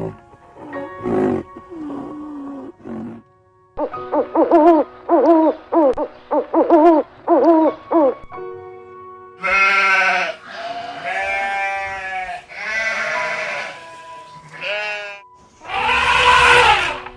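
Repeated animal calls over background music: a few calls at the start, a quick run of about seven short calls, then several longer calls, the loudest near the end.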